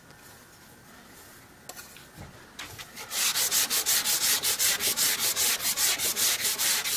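A steel scraper blade being rubbed back and forth against an abrasive in fast, even strokes, about five a second, starting about three seconds in after a quiet stretch with a couple of faint clicks.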